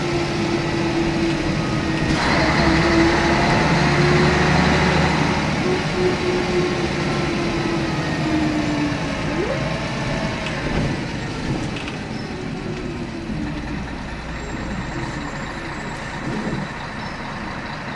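Scania K113CRB bus's 11-litre six-cylinder engine and driveline heard from inside the passenger saloon while driving, with a steady whine that sinks slowly in pitch and then sweeps up about nine to ten seconds in. The sound eases off in the second half.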